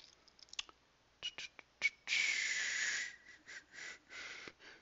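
A few soft computer-mouse clicks, then a long breathy exhale with a faint whistle in it, starting about two seconds in and loudest for about a second before trailing off.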